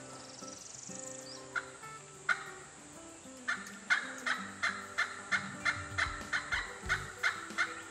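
Turkey yelping: two single yelps, then from about halfway in a steady run of short, evenly spaced yelps, about three a second.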